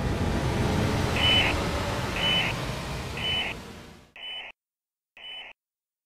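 Intro sound effect: a low rumble that fades away about four seconds in, under a short electronic beep repeating about once a second.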